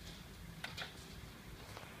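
Heavy hail and rain shower: a faint low rumble with two sharp ticks a little over half a second in, hailstones striking the window.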